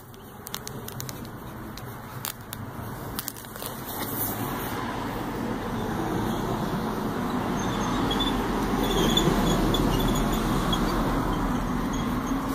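Road-traffic noise that swells over several seconds and eases off near the end, with a few light clicks in the first few seconds.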